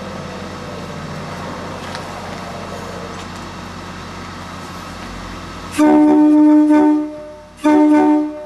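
Passenger train's multi-chime air horn sounding two blasts, a longer one about six seconds in and a shorter one just under two seconds later, over a steady rumble.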